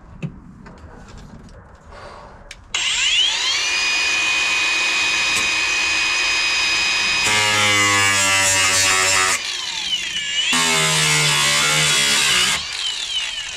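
A handheld power cutting tool spins up about three seconds in and runs at a steady high whine. It then cuts into the car's rusted sheet-metal floor in two stretches, its pitch changing under load, with a short let-off between them, and winds down near the end.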